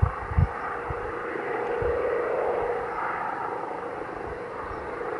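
Police helicopter circling overhead: a steady drone with a held tone that swells a little in the middle. A few low thuds come near the start.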